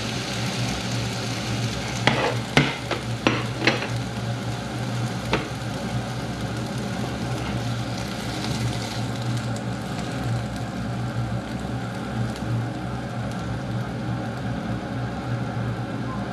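Sliced beef and onions sizzling in a hot frying pan after a splash of vinegar, with a few sharp knocks of a utensil against the pan about two to four seconds in and once more a little later. The sizzle dies down in the second half, the heat having been switched off.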